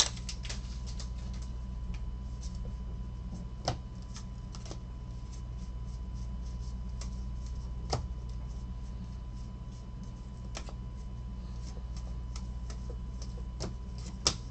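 Trading cards being flipped through by hand one after another, their edges giving many light, irregular clicks, a few sharper ones among them, over a steady low hum.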